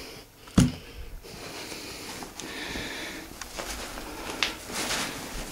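Handling noise from gear and a backpack being moved about: a sharp knock about half a second in, then rustling with a few light clicks.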